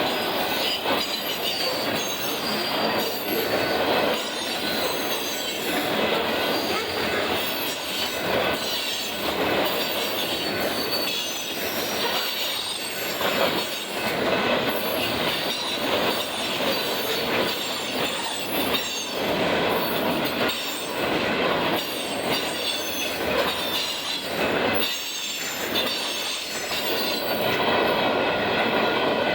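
Union Pacific mixed freight train rolling past, its wheels clacking steadily over the rail joints with a high, wavering wheel squeal above.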